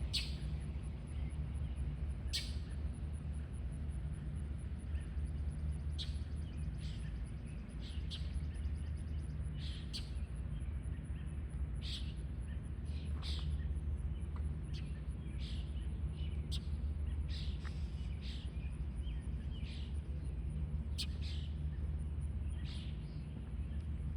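A fox calling: short, sharp cries repeated irregularly every second or two, over a steady low hum.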